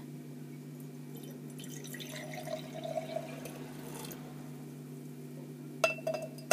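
Clear salt solution being poured from a glass beaker into a glass jam jar, trickling for about two seconds. Near the end come a few sharp glass clinks as the beaker's lip touches the jar rim. A steady low hum runs underneath.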